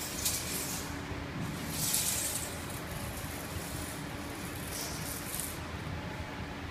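Steady hum and rumble of running spray-dryer plant machinery, with a faint steady motor tone and a few brief hisses.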